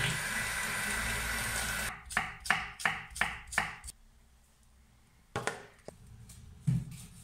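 Electric hand mixer running in a bowl of cake batter, a steady whirr that stops about two seconds in. Five sharp knocks follow in quick succession, about three a second, and then a few single knocks, the last a dull thud near the end.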